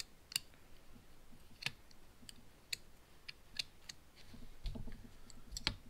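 Small metal clicks and taps of a driver working the cylinder head screws of a nitro model engine as they are tightened, in irregular single clicks with a soft low bump about five seconds in.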